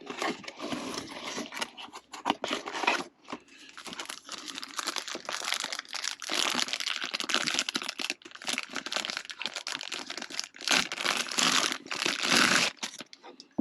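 Packaging of a new spotlight being opened and handled, crinkling and rustling in irregular spells with brief pauses.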